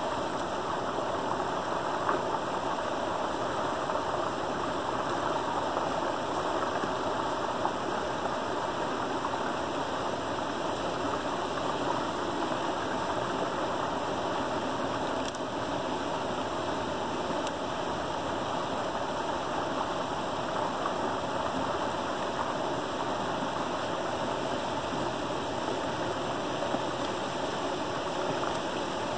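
Creek water rushing steadily through a gap in a beaver dam, spilling over in a small waterfall into the pool below.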